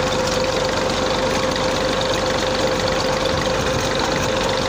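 A 240 tractor's diesel engine running steadily at low revs, turning a tubewell pump through its PTO shaft, with a constant high tone running through the engine sound. The engine is under almost no load.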